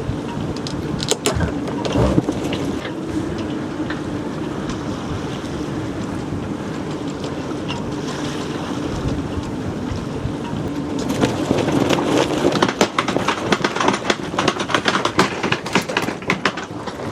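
Strong wind buffeting the microphone over water noise on a small sailing yacht. About eleven seconds in, a rapid, uneven clatter and flapping of sailcloth and rigging begins and keeps on.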